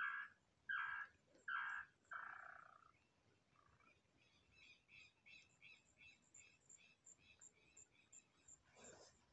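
Bird calling in a series of loud whistled notes, each sweeping downward, about one every 0.7 s, ending about two and a half seconds in. A faint, faster run of higher chirping notes follows at about three a second. There is one short soft thud near the end.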